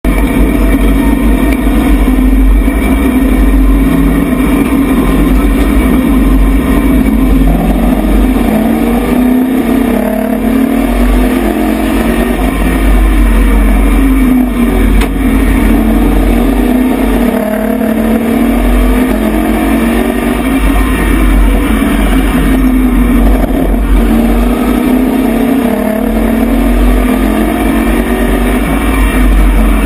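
Race truck engine at full racing speed, heard from inside the cab, its pitch climbing and dropping back every few seconds as it accelerates down the straights and lifts for the turns, over a deep rumble underneath.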